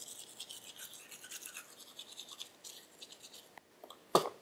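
Toothbrush scrubbing back and forth in quick, scratchy strokes, a tooth-brushing sound effect. It stops just before a single sharp click near the end.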